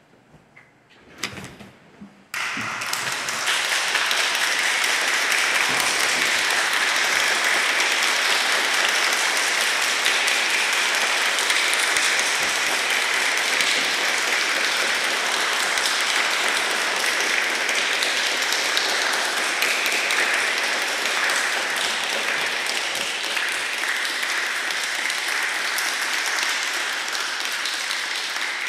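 Audience applause that breaks out suddenly about two seconds in, after a short hush with a few faint knocks, and goes on steadily.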